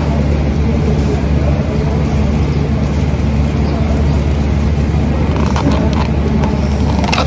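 Steady low-pitched hum of background machinery in a large terminal hall. Near the end come a few light clicks and crinkles of a plastic food bag being handled.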